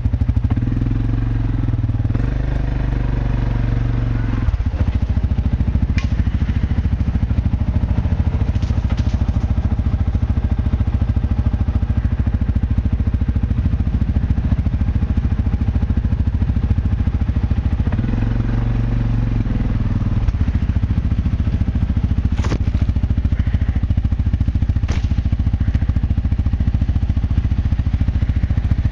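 Quad bike (ATV) engine running steadily at low revs, with the revs rising for a few seconds at the start and again about two-thirds of the way through. Three sharp clicks or snaps stand out, the first about six seconds in and two near the end.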